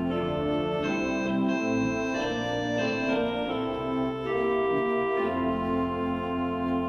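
Church organ playing slow sustained chords that change every second or so: the introduction to a congregational hymn.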